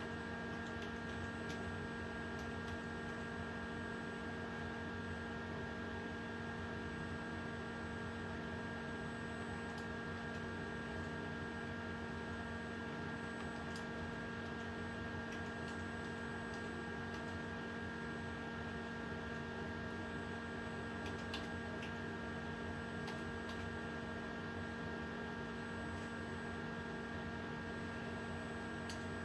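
Steady electrical hum made of several held tones, with faint scattered clicks of a computer keyboard being typed on.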